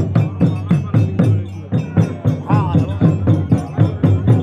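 Music with a quick, even percussion beat, about four strikes a second, and voices singing over it.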